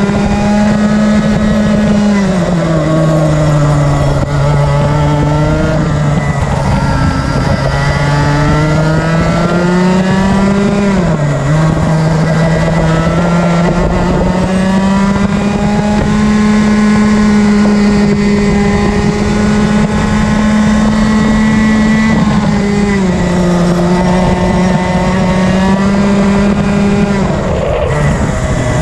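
Rotax Max Senior 125 cc two-stroke kart engine at full racing revs, heard onboard the kart. Its pitch falls as it brakes for corners, about two seconds in and again near the three-quarter mark, with short sharp dips around the middle and near the end, and climbs back and holds high as it accelerates down the straights.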